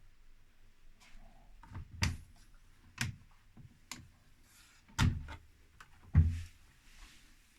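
A series of sharp clicks and knocks, roughly one a second, the loudest about six seconds in.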